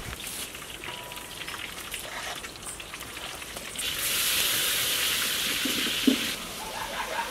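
Loud sizzling as the contents of a large pot are tipped into a hot iron wok over a wood fire, starting about four seconds in and lasting about two and a half seconds, with a short knock near the end of it. Before that, a big pot of gravy is stirred with a ladle.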